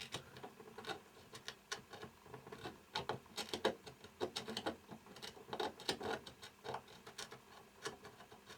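Irregular light clicks and scrapes, several a second, of a small metal tool or probe working on a printed circuit board, scratching at the solder mask over a track while looking for a break.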